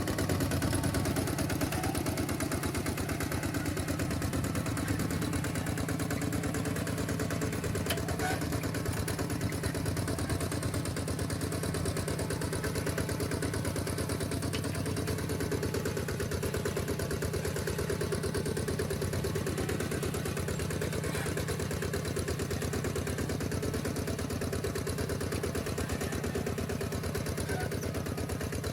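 Two-wheel walking tractor's engine running steadily, with a fast, even chugging.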